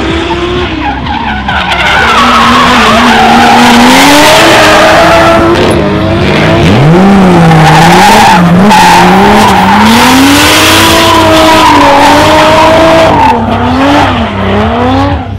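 Drift cars sliding through a corner: engines revving hard with the pitch swinging up and down, over loud tyre skidding.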